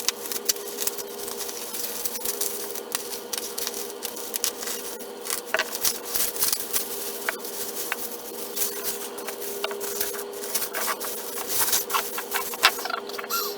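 Rapid crinkling, tearing and clicking of plastic wrapping as small packages are unwrapped by hand, over a steady low hum.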